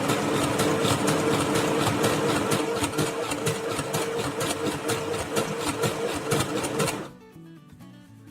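Sew Simple portable electric sewing machine running under the foot pedal, sewing a zigzag stitch: a steady motor hum with rapid needle strokes. It stops suddenly about seven seconds in.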